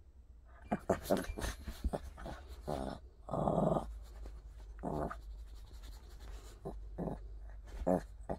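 Small dog growling in short bursts while play-biting a person's hand, the longest growl about three and a half seconds in.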